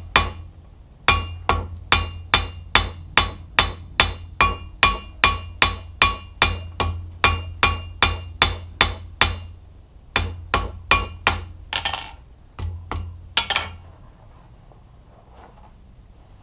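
Rounding hammer striking red-hot steel on an anvil, a steady run of ringing blows about two and a half a second, drawing out and thinning a tong blank. The blows pause briefly about ten seconds in, come back in two short runs, and stop a couple of seconds before the end.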